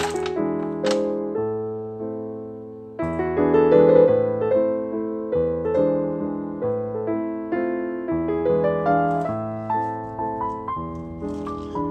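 Background piano music, a gentle run of single notes and chords, each ringing and fading. A couple of light clicks sound near the start.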